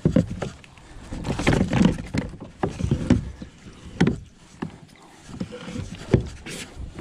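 Irregular knocks, bumps and rustling of gear and hands moving about in a kayak's cockpit while a freshly caught largemouth bass is handled.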